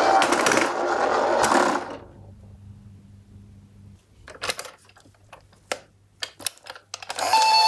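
Toy ambulance minicar rattling as it rolls down a slope, the last of its two-tone electronic siren fading out, which stops about two seconds in. Then a few scattered sharp clicks and knocks of small hard toys.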